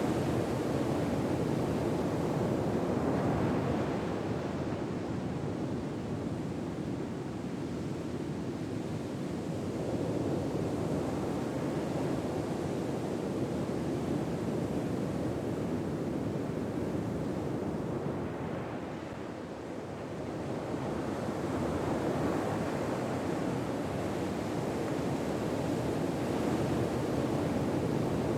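Ocean waves washing on a shore as a steady rush of surf that swells and eases in slow surges, roughly every ten seconds.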